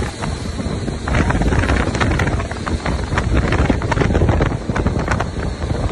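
Wind buffeting the microphone of a fast-moving camera: a loud, low rumble with many irregular clicks and knocks.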